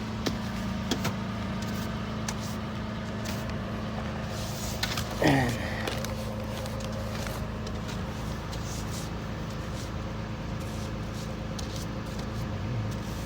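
Car engine idling steadily, with scattered clicks and knocks and one short falling squeal about five seconds in.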